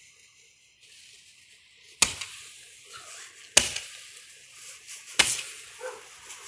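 Consumer fireworks going off: three sharp pops, evenly spaced about a second and a half apart and starting about two seconds in, each followed by a hiss.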